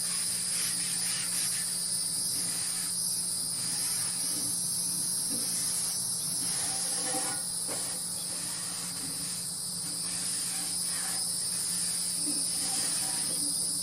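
Steady high-pitched chorus of summer insects, two even shrill bands of buzzing with no breaks.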